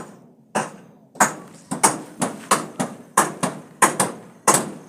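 Hammering: a run of sharp blows, slow at first, then about three a second from a little over a second in.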